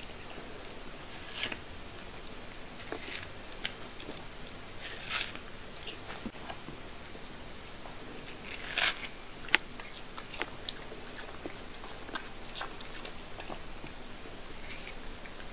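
A cat biting and chewing watermelon: irregular short crunches and clicks over a steady background hiss, the loudest about nine to ten seconds in.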